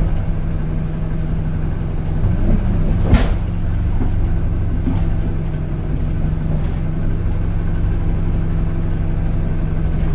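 Steady low engine and drivetrain hum of a single-deck bus, heard from inside the passenger cabin. A single sharp knock or rattle stands out about three seconds in.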